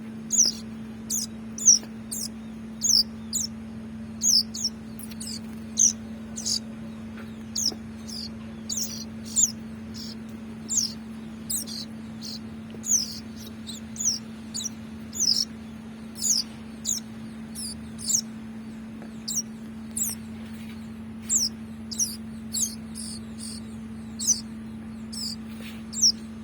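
Bar-winged prinia (ciblek) chick giving short, high begging chirps that slide down in pitch, about one or two a second, as it is hand-fed. A steady low hum runs underneath.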